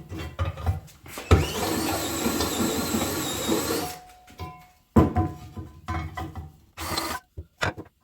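A power drill runs steadily for about two and a half seconds, drilling the hole for a Dzus quarter-turn fastener, with clicks and knocks of tool and part handling before and after.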